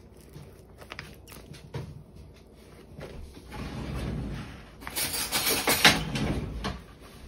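A plastic spoon stirring cooked rice in a plastic container: light clicks and taps at first, then a louder scraping about five seconds in.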